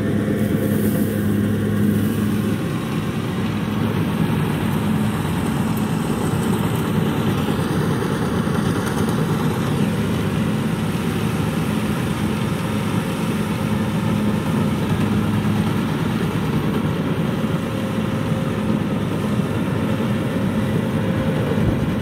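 Kubota DC60 rice combine harvester's diesel engine running steadily under load as the machine cuts rice, a continuous engine drone with the threshing machinery.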